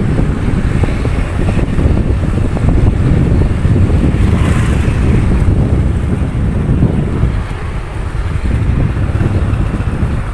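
Motorcycle on the move: a low engine rumble mixed with wind buffeting on the microphone, getting somewhat quieter for the last couple of seconds as it slows.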